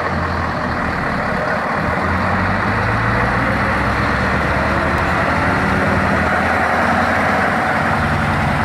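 Bullnose truck's diesel engine running steadily.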